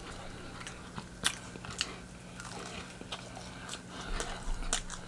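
Close-miked chewing of crispy fried chicken: scattered sharp crunches and mouth clicks, with a faint steady hum underneath.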